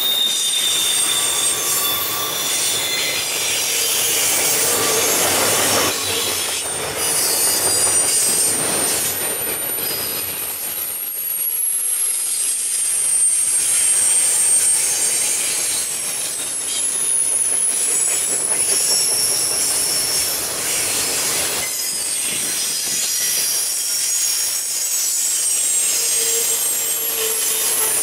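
Double-stack intermodal well cars rolling past on the rails with a steady rumble and clatter, and high-pitched wheel squeal that comes and goes and shifts in pitch.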